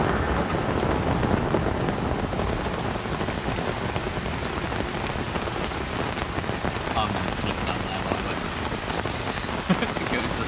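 Heavy rain bucketing down onto a lake's surface and its muddy bank, a steady even hiss.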